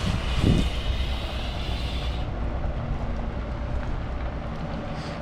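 Semi tractor-trailer truck's engine running with a steady low rumble as the truck drives away. A hiss higher up fades out about two seconds in.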